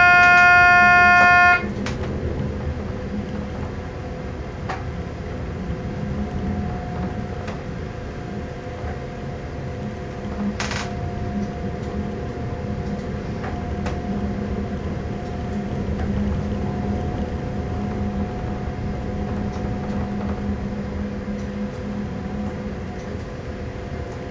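A train's horn sounds one loud, steady blast, cutting off about a second and a half in. The train then runs on with a steady rumble and a faint whine, and a few clacks from the rails, the loudest about ten seconds in.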